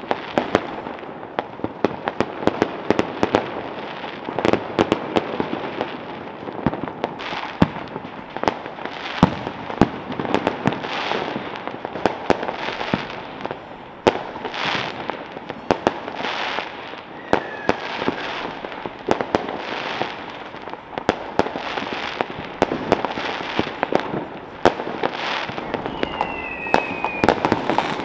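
Many fireworks and firecrackers going off at once: a dense, continuous run of sharp bangs, pops and crackles, with rushing hisses. Two brief whistles falling slightly in pitch come in the second half.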